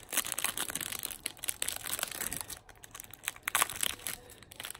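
Clear plastic trading-card pack wrapper crinkling as the cards are handled, with irregular crackles and small clicks, louder in short bursts a couple of times.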